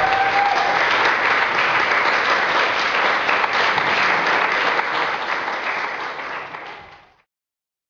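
Audience applauding. The applause fades about six seconds in and cuts off to silence just after seven seconds.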